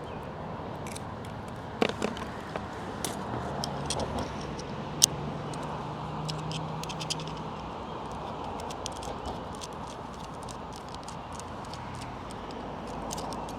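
Scattered small metallic clicks and clinks from handling steel hose clamps and hardware on an antenna mount. Two sharper clicks come about two and five seconds in, over a steady outdoor background hiss.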